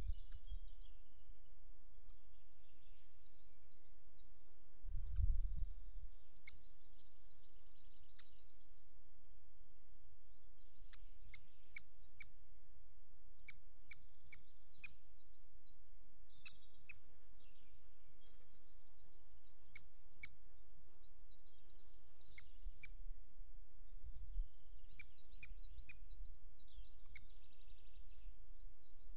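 Small birds singing and calling, with warbling phrases and many short sharp chips, over a steady low rumble that swells briefly about five seconds in and again near the end.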